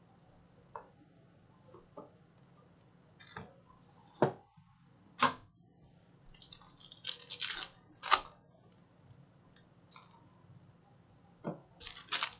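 Handling of trading-card boxes and a foil card pack: a few scattered taps and knocks, then a stretch of crinkling foil wrapper as the pack is torn open, about six to eight seconds in, and again near the end.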